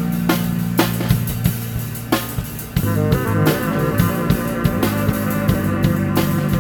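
Live experimental rock jam: electric guitar and drum kit playing loud and loose, with steady drum hits over held guitar chords; the playing thins out briefly about two and a half seconds in, then comes back in full.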